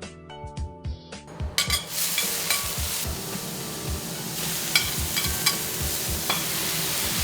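Plucked background music, then about a second and a half in, food begins sizzling loudly on a teppanyaki griddle over high heat, with a few sharp clicks as it is worked. The music carries on underneath.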